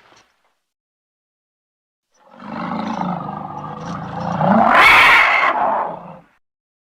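Triceratops roar sound effect: after a silent start, one long, low creature roar begins about two seconds in, grows louder to a peak near the end, then stops.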